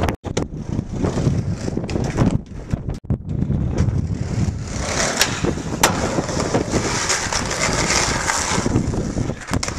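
Skateboard wheels rolling over pavement and asphalt, a steady rumble with hiss, over wind buffeting the microphone, with two sharp clicks past the middle. The sound breaks off briefly twice at clip cuts.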